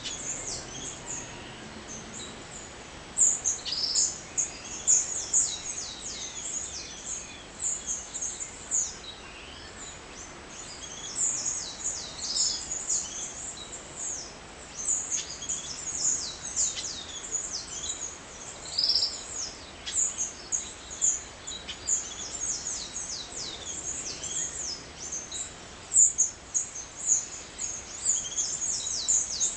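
Dawn chorus of many small birds: dense, overlapping high-pitched chirps and short downslurred notes, over a faint steady hiss.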